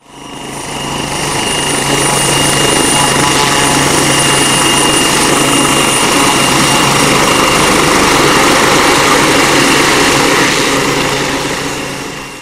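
Sikorsky S-76 helicopter's twin turbine engines and rotor running steadily with a high, steady whine, fading in over the first couple of seconds and fading out near the end.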